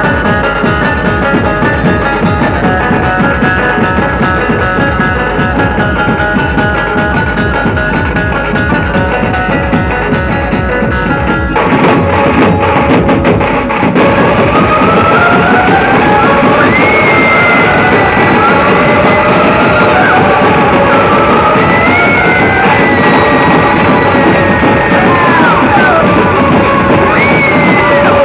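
Dhumal band music played loud, with dense, driving drumming under a melody. About twelve seconds in, the music shifts to a lead line that slides and bends in pitch.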